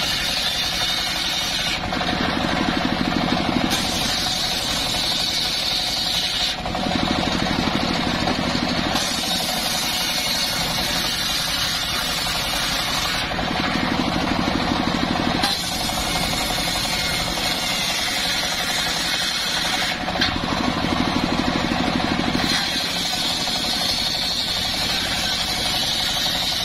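Large engine-driven circular sawmill blade ripping mahogany boards into strips, the engine running steadily while the cutting sound changes every few seconds as boards are fed through the blade.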